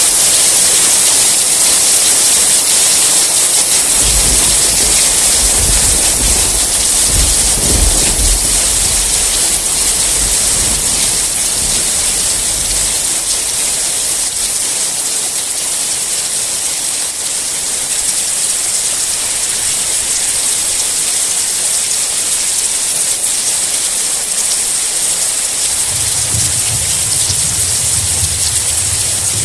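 Steady heavy rain with a dense hiss. A low rolling rumble of thunder builds about four seconds in, peaks around eight seconds and fades out by about thirteen seconds; another low rumble starts near the end.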